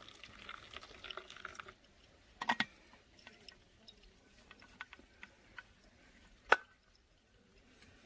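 Hot water poured from a stainless thermos into a paper-filter pour-over coffee dripper, a soft stream that stops after about a second and a half. Then a quick double click, faint scattered ticks of coffee dripping through, and one sharp click near the end, the loudest sound.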